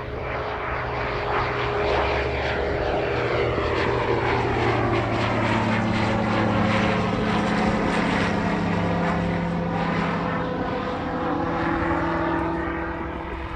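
BRM Aero Bristell B23 light aircraft with its Rotax 915 iS engine and propeller at full power on climb-out after take-off. The engine drone grows louder over the first couple of seconds, drops in pitch as the aircraft passes overhead, and fades a little near the end as it climbs away.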